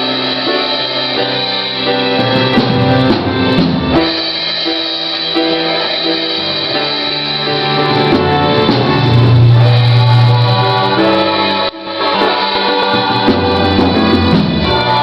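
Musical theatre song: voices singing over instrumental accompaniment, dropping out for a moment about twelve seconds in.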